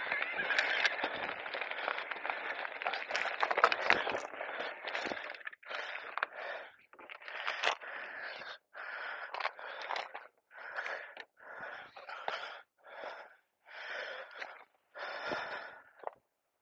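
Continuous rushing ride noise with scattered clicks for about five seconds, then a person's heavy breathing close to the microphone: short gasps roughly once a second with quiet gaps between them.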